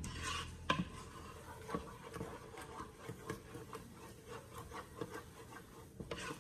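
Wooden spoon stirring thick praline (pecan candy) mixture in a pot, rubbing and scraping, with irregular light knocks against the pot's sides.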